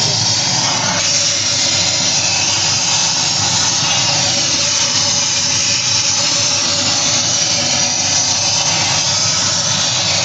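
Gas torch flame burning with a steady hiss inside the bore of a stripped induction-motor stator core.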